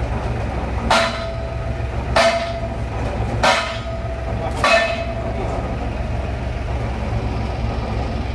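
Four hammer blows on metal at a borewell drilling rig, evenly spaced about a second and a quarter apart, each with a short metallic ring. The rig's engine runs steadily underneath.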